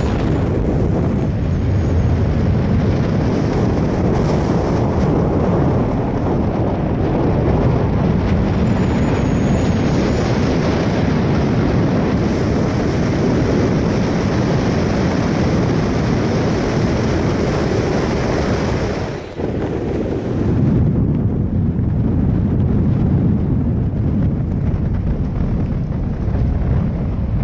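Steady, loud wind rush buffeting the microphone together with the road noise of a moving car. It dips briefly about nineteen seconds in.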